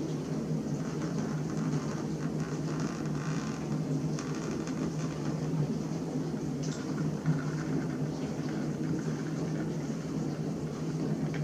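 Steady whir of a small motor running, with a low hum.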